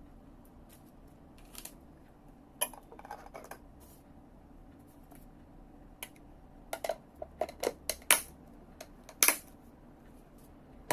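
Scattered light clicks and taps of kitchen tongs and dishware as blanched celery sticks are lifted into another container.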